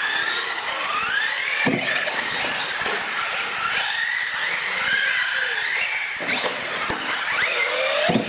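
Small electric motors of several radio-controlled UTVs whining, the pitch rising and falling as they speed up and slow down, with a few short knocks.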